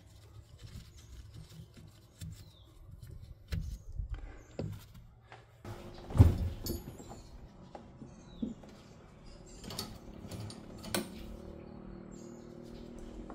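Hand tools and metal car parts being handled: scattered knocks and clicks, the loudest about six seconds in. A low steady hum comes in a little before the middle.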